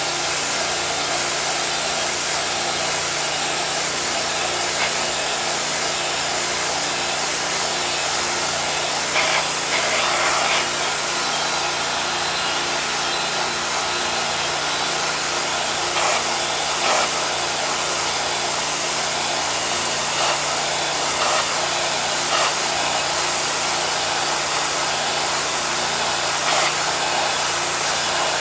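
A hot-water pressure washer's high-pressure jet hissing steadily as it blasts a metal plate to strip its paint, over a steady low drone from the washer unit. A few brief louder bursts come now and then as the jet moves across the plate.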